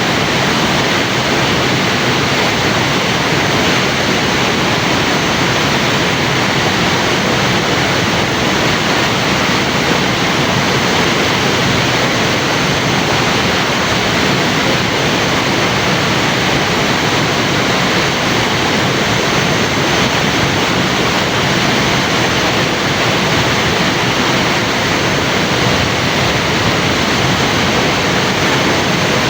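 Waterfall: a loud, steady rush of falling water with no let-up.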